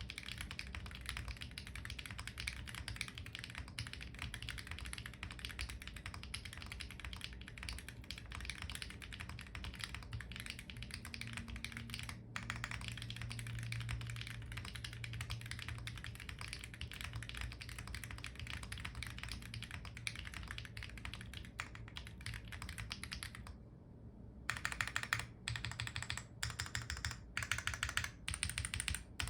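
Weikav Record 65% mechanical keyboard, foamless with an FR4 plate, fitted with lubed and filmed Gateron Baby Kangaroo tactile switches and ABS cherry-profile keycaps, being typed on quickly in a dense run of key clacks. After a brief pause near the end, the stabilized keys are pressed one at a time, about twice a second, in louder single strokes.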